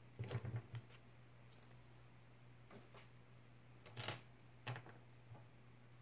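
Small hard plastic Playmobil figure parts clicking and knocking together as they are handled on a tabletop: a quick cluster of clicks at the start, another about four seconds in, and a few lighter taps between, over a faint steady low hum.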